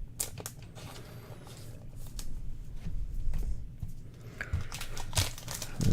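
Trading cards and their plastic holders being handled: scattered light clicks and short rustles over a low steady hum.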